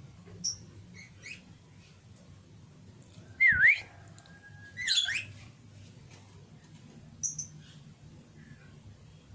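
Lovebird calling: a few short, high chirps and two loud whistled notes that dip down and swing back up in pitch, about three and a half and five seconds in.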